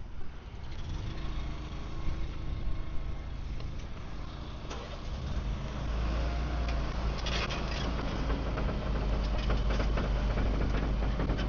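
A vehicle engine running with a steady low rumble, picking up and getting louder about six seconds in, with scattered clicks and rattles over it.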